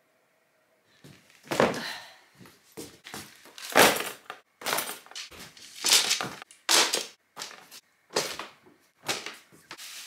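Belongings being handled and sorted by hand: a run of irregular rustles and soft knocks from clothes, a plastic bin bag and other items being picked up and put down, starting about a second in.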